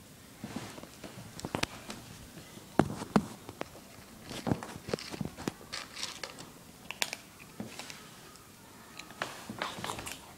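Kitten eating dry kibble from a plastic bowl: irregular sharp crunches and clicks.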